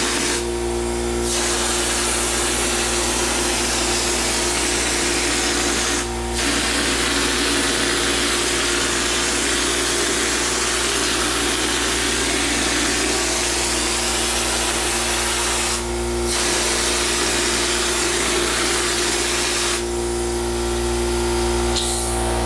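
Drywall texture hopper gun spraying thin knockdown joint compound onto a wall with compressed air: a loud, steady rushing hiss that stops briefly about four times as the trigger is let off, the last break near the end the longest. A steady air-compressor hum runs underneath throughout.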